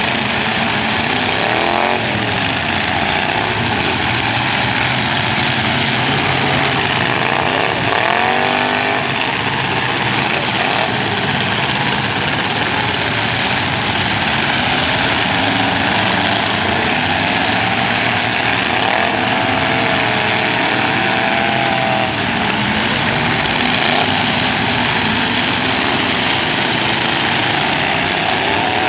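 Demolition derby car engines running loud and unmuffled, revving up and down several times over a steady din of other engines.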